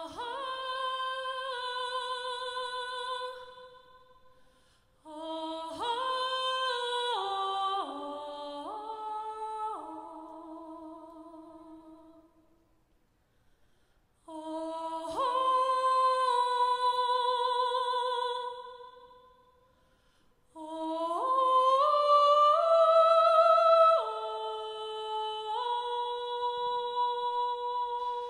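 Five-part (SSATB) a cappella vocal ensemble singing held chords in four phrases separated by short pauses. The voices come in one after another at the start of each phrase, stacking up into the chord, and the harmony shifts in steps within each phrase.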